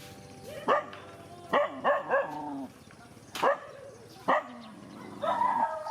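A dog barking: six short, sharp barks spread irregularly over about four seconds, three of them in quick succession.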